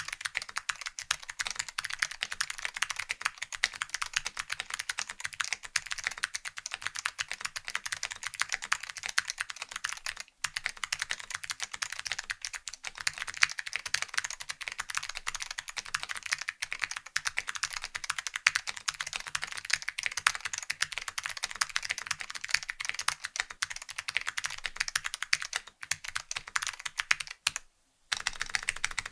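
Continuous fast typing on a custom mechanical keyboard with clicky SKCM Blue Alps switches, lubed, on a POM plate with IBM 5140 keycaps: a dense stream of sharp key clicks. The typing breaks off briefly about ten seconds in and again shortly before the end.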